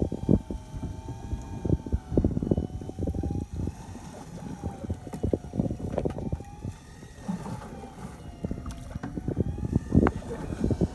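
Electric fishing reel winding in line against a hooked grunt, its motor whine sagging and recovering in pitch as the fish pulls. Frequent low knocks and splashes run underneath.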